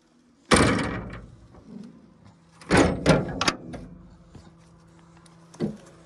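Sheet-metal row-unit doors on a John Deere CP690 cotton picker being swung and banged shut: one loud metallic bang about half a second in, a quick run of three or four bangs and rattles around the middle, and a lighter knock near the end.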